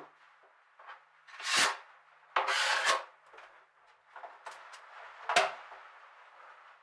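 A notched spreader scrapes adhesive across a plywood panel in a few short strokes; the longest and loudest comes about two and a half seconds in. A sharp knock follows about five seconds in.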